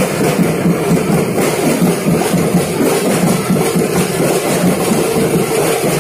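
Loud, continuous procession drumming: a dense, rapid, irregular beat over a steady din.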